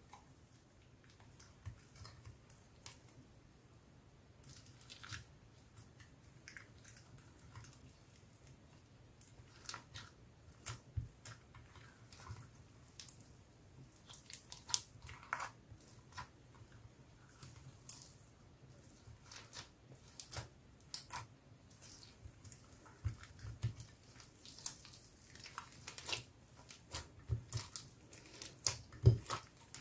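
Clear slime being squished, pulled and folded by hand into clay and foam beads, making sticky crackles and wet pops. The pops start sparse and come thicker and louder in the second half as both hands work the mix.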